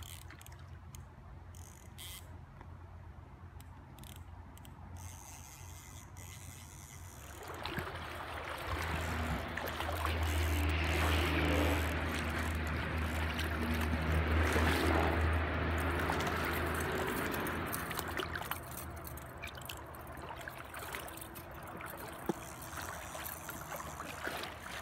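Shallow river water rushing and sloshing close by, swelling louder about a third of the way in for roughly ten seconds, then easing back.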